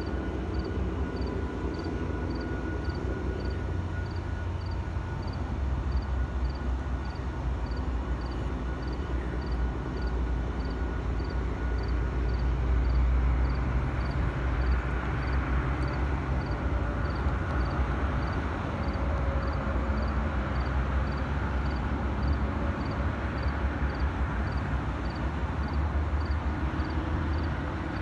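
Diesel-electric locomotive approaching slowly, its engine giving a steady low rumble that grows louder about halfway through. A faint high tick repeats about twice a second throughout.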